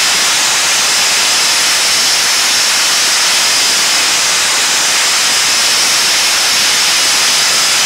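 Sponge media blaster running continuously: a loud, even hiss of compressed air and sponge abrasive from the nozzle with a steady high note in it, stripping paint from wooden ceiling planks.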